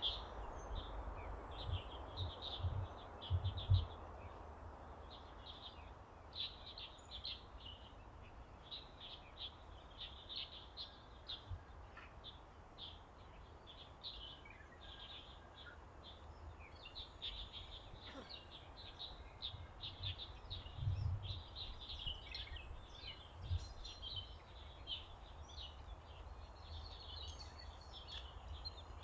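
Many small birds chirping in quick, short notes throughout, over a faint steady high-pitched tone. A few dull low thumps come in the first few seconds and again about two-thirds of the way through.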